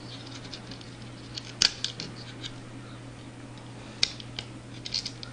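Small metallic clicks and scrapes of a resistor's wire leads being fitted onto the metal terminal posts of an electronics experiment board, the sharpest click about one and a half seconds in and a few more near the end. A faint steady low hum runs underneath.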